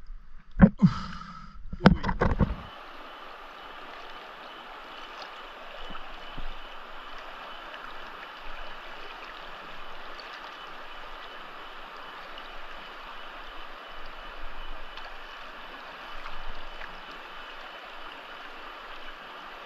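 Steady rushing and gurgling of river water, with a few short spoken sounds in the first couple of seconds.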